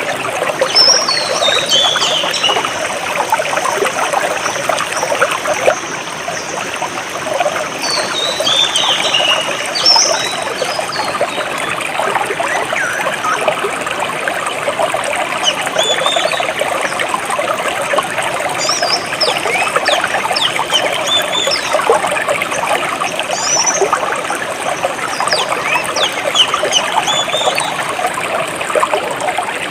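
Clear jungle stream trickling and splashing steadily over stones, with birds calling above it: a high descending call near the start and again about 8 seconds in, then short high chirps repeated through the second half.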